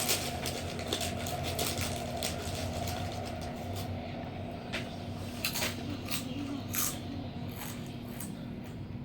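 Crinkling: an irregular run of crackles and rustles over a steady low tone, with a higher steady tone that fades out about four seconds in.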